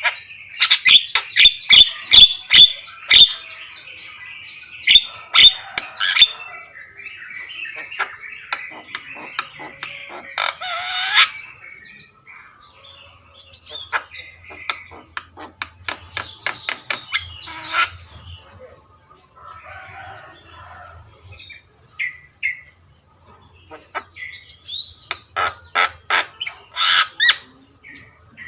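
Javan myna (jalak kebo) singing: several loud bursts of rapid sharp clicking notes and chatter, separated by short pauses.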